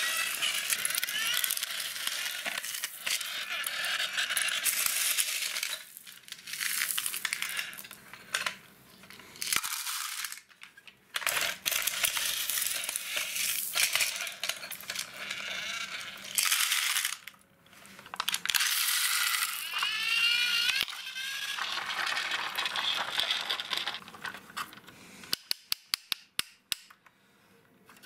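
Small stones scraping and rattling as a plastic toy wheel loader's bucket scoops them off concrete and tips them into a plastic toy dump truck bed, in spells broken by short pauses. Near the end, a quick run of sharp clicks.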